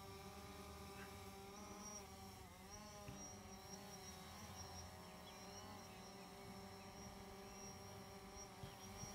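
Faint buzz of a small quadcopter drone's propellers, its pitch wavering up and down several times as it hovers and manoeuvres.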